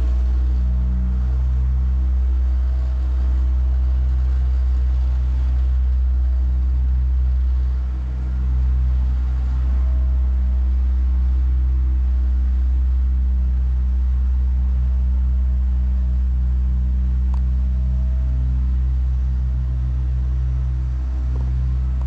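Asphalt-paving machinery running steadily: a deep, even engine rumble with a low hum over it.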